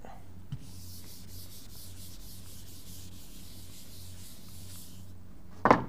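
Chalkboard being wiped with a felt duster: a dry, scratchy rubbing in repeated strokes, starting about half a second in and stopping about five seconds in.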